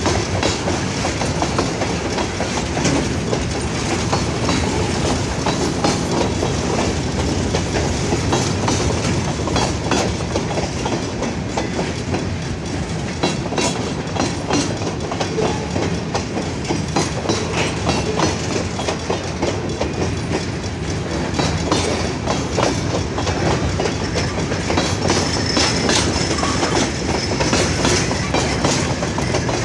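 Freight train cars rolling past, loud and steady, the wheels clicking continuously over the rail joints.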